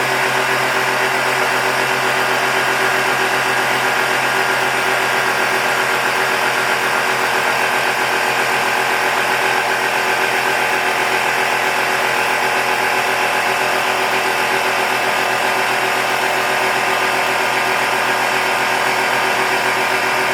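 Small electric air compressor pump for an air horn kit, running steadily and loud with a fast, even mechanical rattle, building up air pressure for the horns.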